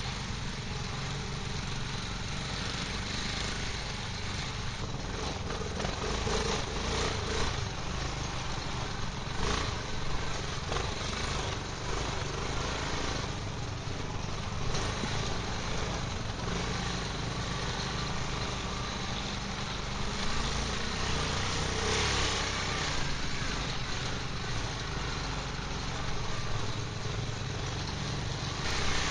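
Quad (ATV) engine running steadily while riding along a dirt track, with a few brief knocks mixed in.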